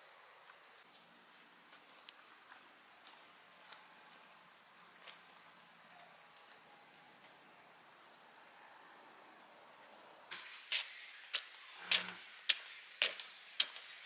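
Insects, crickets or cicadas, keeping up a steady high-pitched buzz. About ten seconds in the sound changes abruptly to a louder, higher buzz, and a run of sharp knocks starts, about two a second.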